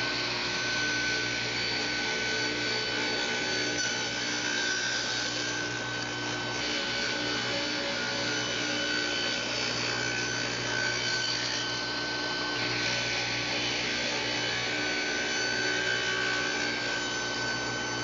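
Power saw running steadily while cutting Wenge and Caribbean rosewood into strips, a continuous machine noise with a high steady whine over a low hum.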